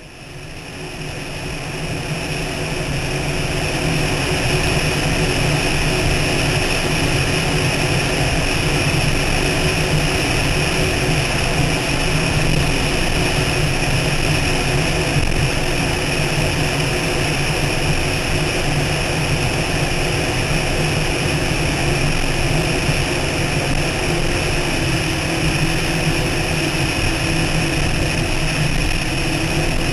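Steady roar of an MTI offshore racing catamaran's engines and rushing air at speed, heard on board, rising to full level over the first few seconds and then holding.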